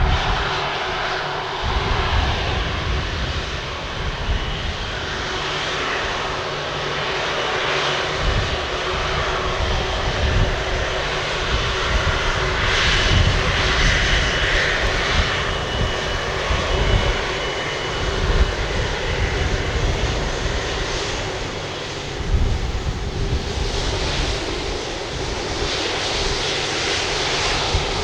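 Airbus A330-200 jet engines running at low power as the airliner rolls out and taxis after landing: a steady hum with an uneven low rumble that swells and fades.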